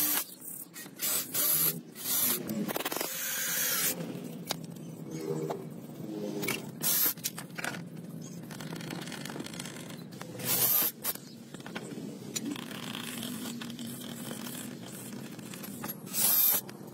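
Several short bursts of a cordless drill boring holes through a motorcycle's plastic fairing panel. Between the bursts there is quieter scraping and handling of the panel.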